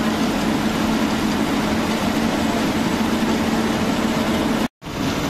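Bus engine running with a steady low drone and road noise. The sound cuts out completely for a moment near the end.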